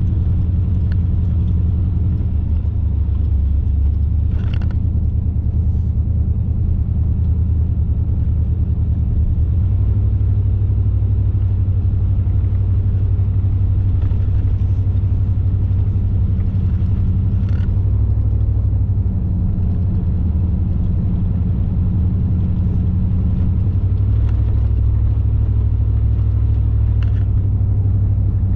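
Car driving along a road: a steady low rumble of engine and tyres, its hum shifting in pitch now and then with speed, and a few faint brief clicks.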